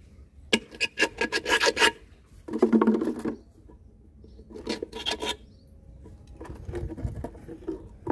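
Thin wire being pushed and worked through a hole in a plastic bottle cap, scraping and rasping against the plastic in three short bursts of rapid scratching, then fainter rubbing.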